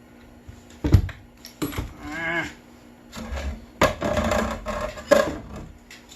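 Hard objects being handled and set down: a string of knocks and clatters, with a short squeaky scrape about two seconds in.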